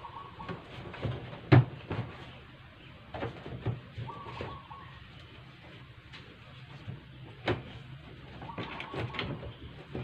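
Plastic top cover of an LG twin-tub washing machine being pressed and slid into place by hand: scattered knocks and clicks of plastic on plastic, the loudest about one and a half seconds in.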